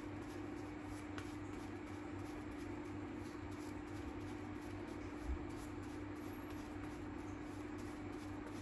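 Tarot cards being shuffled and handled, a soft rustling and rubbing over a steady low hum, with one low thump about five seconds in.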